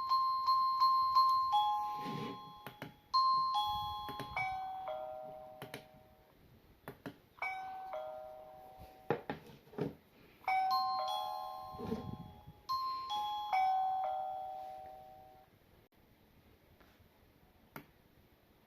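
Electronic doorbell chime playing short tunes of bell-like notes that fall in pitch, one tune after another, with clicks between the tunes. The chiming stops a few seconds before the end, leaving one more click.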